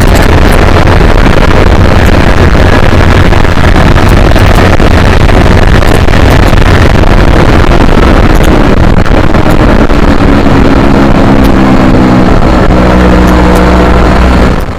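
Onboard sound of a Yamaha R3's 321 cc parallel-twin engine, heavily mixed with wind rumble on the microphone. About ten seconds in the bike slows and the engine's lower, steady note comes through more clearly. The sound fades out at the very end.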